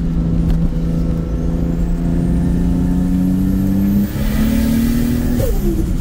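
Toyota Supra engine accelerating, heard from inside the cabin, running clean on a newly replaced ignition coil with the misfire gone. The revs climb with a faint high whine rising alongside, drop sharply at a gear change about four seconds in, climb again, and fall away briefly near the end.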